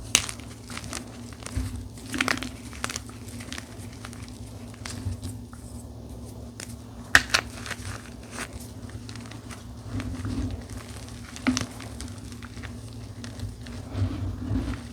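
Blocks of dyed gym chalk being crushed, giving irregular crunches and crumbles. The sharpest snaps come right at the start, about two seconds in and about seven seconds in.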